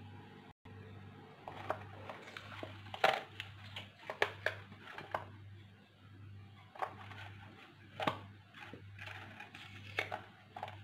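Handling sounds as set chocolate sweets are pushed out of a flexible silicone mold: soft rubbery rustling and scattered light clicks and taps. A steady low hum runs underneath.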